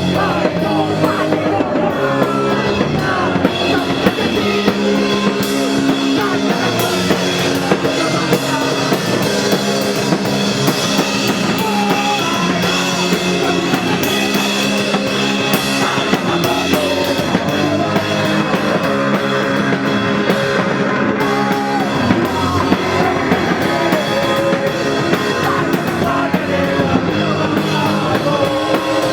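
Rock music with a drum kit playing steadily throughout.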